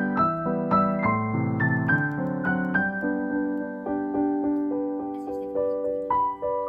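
Background piano music: a slow, gentle melody with chords.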